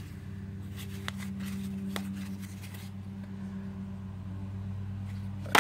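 A steady low hum, with a few faint clicks as a crushed old A&W can is turned over in the hand, and a short rustle near the end.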